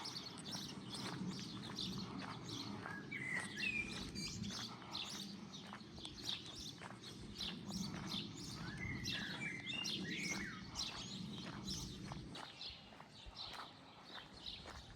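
Small songbirds chirping and twittering, many short calls overlapping, with a few longer gliding calls among them. A low steady rumble underneath stops about twelve seconds in.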